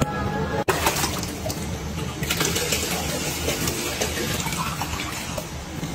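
Fresh water poured from a plastic basin into a small glass fish tank, splashing onto the gravel during a water change. The pouring is strongest around the middle.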